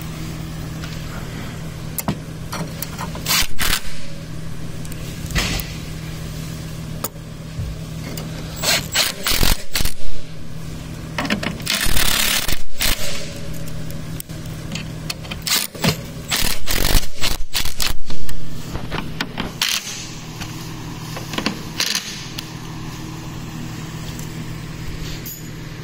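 Power drill with a T25 bit driving screws through the steel rocker-spring brackets into the wooden chair base, running in a series of short bursts of one to two seconds with pauses between.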